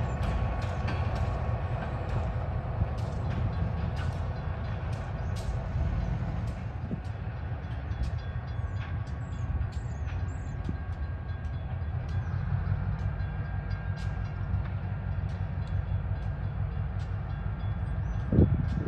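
EMD SW1200 diesel switcher locomotive running with a steady low rumble as the train moves, with scattered light clicks over it. A sharper, louder thump comes near the end.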